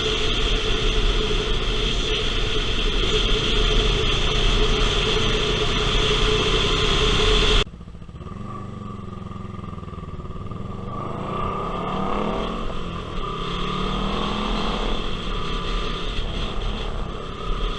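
1977 Yamaha XS360 parallel-twin motorcycle running through its MAC exhaust while being ridden. For the first seven or so seconds it runs steadily under a loud rushing noise. After a sudden cut the engine is quieter and climbs and falls in pitch several times as it accelerates and shifts gears.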